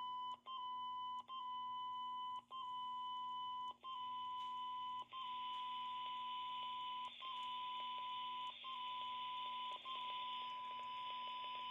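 Steady 1 kHz test tone from the Belfone BF-TD910uv radio's speaker, demodulated from a signal generator's UHF test signal. It cuts out briefly each time the signal level is stepped down. From about five seconds in, a hiss rises under the tone as the received signal weakens toward the receiver's 12 dB SINAD point.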